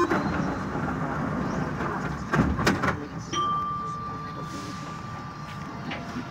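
Metro train's sliding doors shutting with a few sharp knocks about two and a half seconds in. A steady high whine starts a moment later as the train gets ready to pull out.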